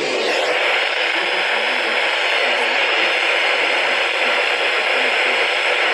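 Loud, steady static hiss from a weather radio on a weak NOAA Weather Radio signal. It swells just after the start and nearly drowns out the automated voice reading the warning, which is faint underneath.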